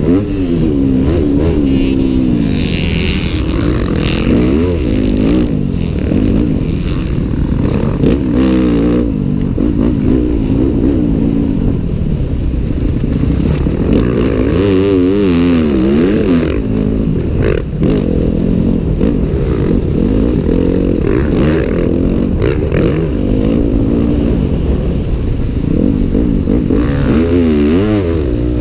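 Yamaha YZ250F four-stroke single-cylinder motocross engine with a full FMF titanium exhaust, revving up and falling off again and again as the throttle is opened and closed around the track.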